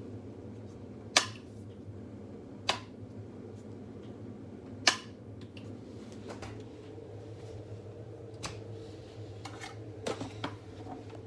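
Sharp plastic clicks and snaps from a food processor, about eight of them spaced irregularly, over a faint steady hum. No motor runs between them.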